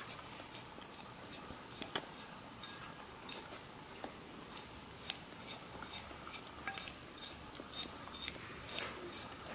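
Bedlington terrier licking a ceramic plate clean: irregular small clicks and taps of tongue, teeth and nose against the plate, about two a second, with wet licking in between.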